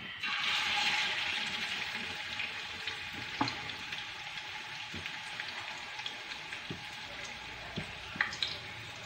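Hot oil sizzling in a kadhai as chicken kabab patties fry. The sizzle is loudest at the start and settles to a steady hiss, with a few soft clicks.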